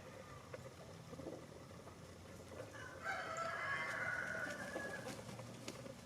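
Rooster crowing once, a single call of about two seconds starting about halfway through, over quieter background sound from the flock.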